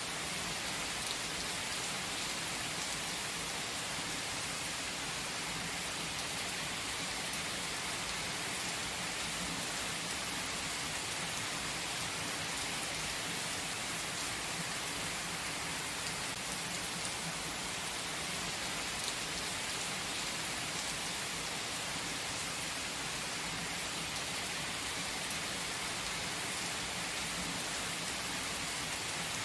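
Steady rain falling: an even hiss with a fine patter of drops, holding the same strength throughout.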